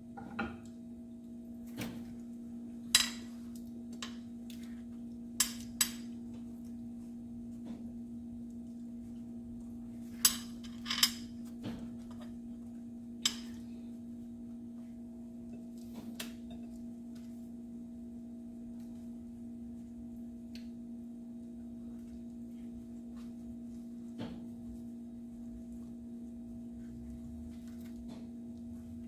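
Kitchen utensils knocking and clinking against a skillet, plate and glass baking dish while shredded pork is spooned onto tortillas: a handful of sharp clinks, clustered in the first half, over a steady low hum.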